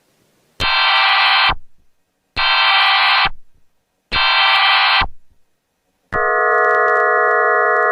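Emergency Alert System alert: three loud data-header bursts of about a second each, then the steady two-tone attention signal starting about six seconds in. All of it is pitch-shifted and distorted by a 'G-Major' video effect, so each burst sounds like a dense stack of tones.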